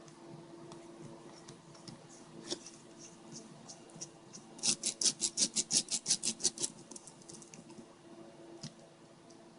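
Hand screwdriver with a Torx bit turning small screws into a GPS unit's plastic case: scattered light ticks, then about two seconds of rapid, even clicking, about seven clicks a second.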